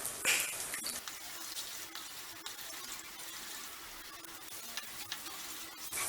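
Eggs frying in hot oil with onion-tomato masala in a pan: a steady sizzle, with a few short clicks and scrapes as the mixture is stirred.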